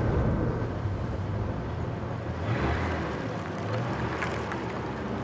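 A car's engine running with a steady low hum, then a broader rush of road and tyre noise coming up about halfway through as the car drives.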